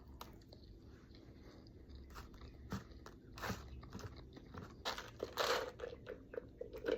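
A person biting and chewing McDonald's breakfast food close to the microphone, with a few crunchy bites and wet chewing between them.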